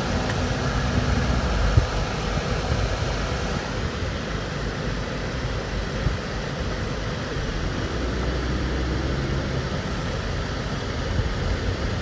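Street traffic noise: car engines idling and running, a steady noise with a low engine hum that swells and fades.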